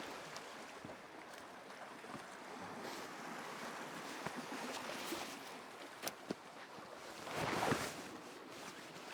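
Sea waves washing against a rocky, icy shoreline, with wind. One wave surges in louder a little after seven seconds, and a few faint sharp clicks come around the middle.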